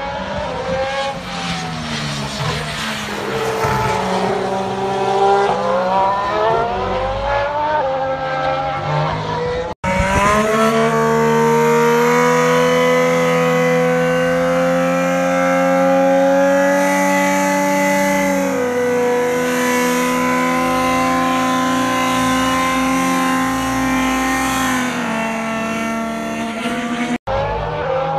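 Formula One cars' turbocharged V6 hybrid engines running at speed on track, the pitch rising and falling with acceleration and gear changes, then a long steady high note that steps down in pitch about two-thirds of the way through. The sound breaks off abruptly twice where clips are joined.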